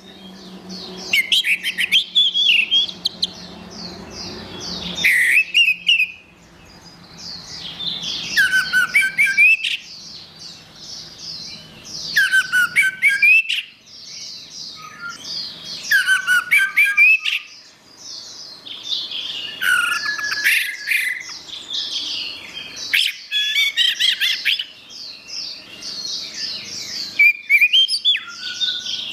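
Orange-headed thrush (anis merah) singing: a rapid, varied jumble of high notes in phrases that come about every four seconds, many of them ending in a lower note that drops away.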